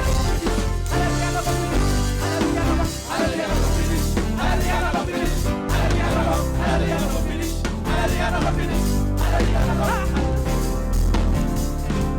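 Live gospel praise-and-worship music: a full band with a heavy, changing bass line and singing voices.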